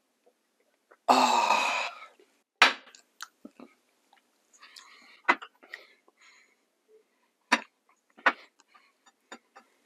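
A loud breathy exhale lasting about a second, right after gulping a chilled drink. It is followed by a few sharp clicks and knocks of crockery against a glass tabletop as bowls are handled.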